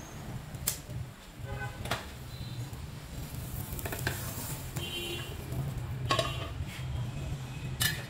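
Frying pan and metal tray clinking and knocking about five times as a cooked omelette is slid out of the pan onto a plate in a stainless steel tray, over a steady low hum.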